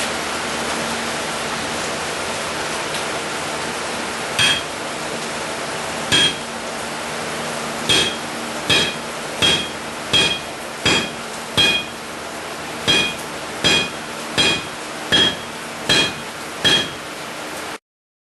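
A blacksmith's hammer striking steel on an anvil about fourteen times, two spaced blows and then a steady run of blows a little under a second apart, each with a bright metallic ring. This is forging the corners of a hardy tool's shank down so it will seat in the anvil's hardy hole.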